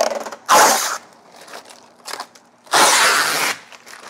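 Factory protective plastic film being peeled off a new car's door sill, tearing and crackling in several loud rips, the biggest about half a second in and near three seconds in, with crinkling of the loose film between.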